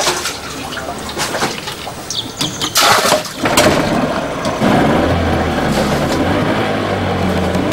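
Evinrude 40 hp two-stroke outboard motor starting up about three and a half seconds in, after a few knocks, and then running steadily with a low hum.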